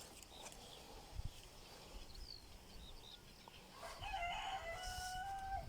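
A rooster crows once, a single held call of under two seconds beginning about four seconds in. Small birds chirp faintly before it.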